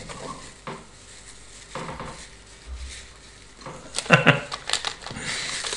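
Small objects handled, with light clinks and taps, then plastic wrapping crinkling near the end.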